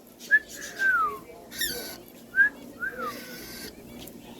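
Caged pet bird whistling a repeated two-note call, a short high note followed by a longer note sliding down, twice. A brief harsh squawk-like burst comes about a second and a half in.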